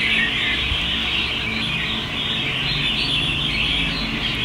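Caged red-whiskered bulbuls chirping and calling in a continuous, dense chatter, over a faint low hum.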